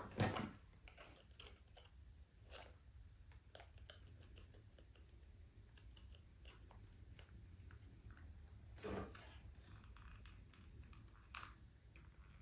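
Faint scattered clicks and light knocks of small frame parts being handled on a workbench, with a more noticeable knock about nine seconds in, over a steady low hum.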